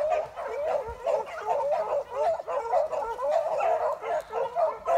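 Beagles baying in the brush, many short overlapping calls one after another without a break.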